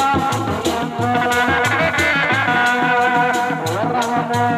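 Sundanese dog-dog drum ensemble playing a steady beat, with sharp strokes on top and a sustained, wavering melody above it, typical of the tarompet reed pipe.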